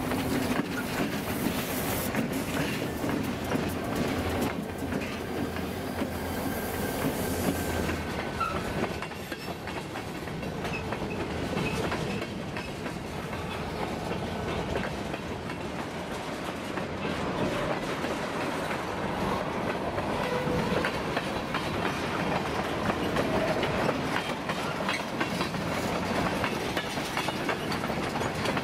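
Freight cars rolling slowly past over rough jointed track: steady clicking and clacking of wheels over the rail joints, with a few brief faint wheel squeals. A low diesel locomotive drone sounds under it at first and fades after several seconds.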